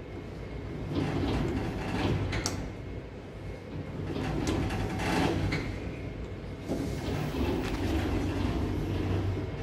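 KONE marine elevator's sliding doors running a few times in noisy surges, each one to two seconds long, as the car buttons are pressed and the doors close and reopen, over a steady low hum.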